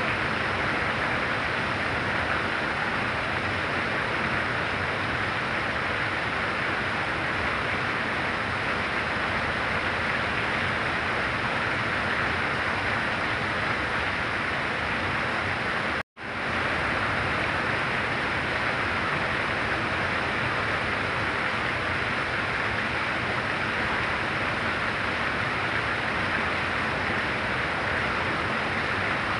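Heavy rain falling as a steady, even hiss. About halfway through it cuts out for a split second and comes straight back.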